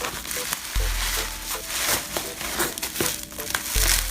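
Packaging crinkling and rustling as a phone parcel is unwrapped by hand, with two dull handling thuds, one about a second in and one near the end. Faint background music runs underneath.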